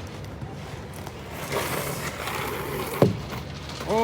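Inline skate wheels rolling on pavement, growing louder about halfway through, then one sharp clack about three seconds in as the skater lands a fakie trick.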